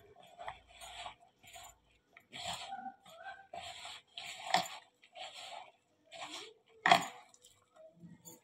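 Hand mixing a wet dough of gram flour (besan) and fenugreek leaves in a plastic bowl: a run of short, wet squishing strokes, roughly one or two a second. A louder knock about seven seconds in, as the hand presses against the bowl.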